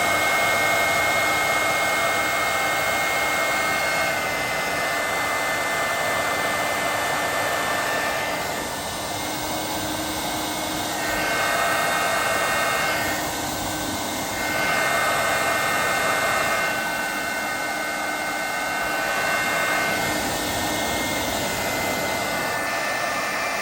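Hand-held hair dryer blowing at full power: a steady rush of air with a high motor whine. The loudness dips and rises several times.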